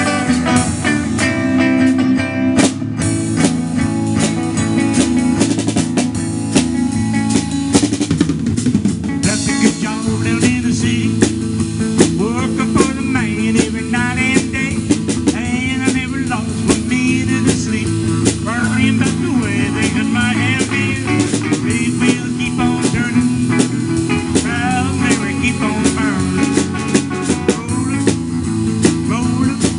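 Live band music from an electric guitar and a drum kit, starting abruptly at the outset. The drums keep a steady beat with snare rimshots and bass drum, and from about ten seconds in a lead guitar line plays wavering, bending notes over it.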